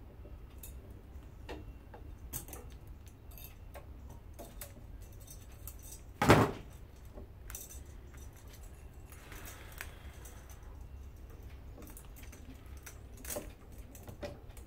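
Light metallic clinks and taps from handling the parts of an electric lawnmower motor during a teardown, with one louder knock about six seconds in. A faint low hum sits underneath.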